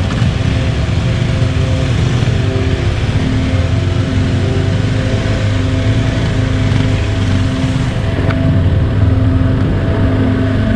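Onboard sound of a KTM 390 Adventure's single-cylinder engine running steadily at low road speed.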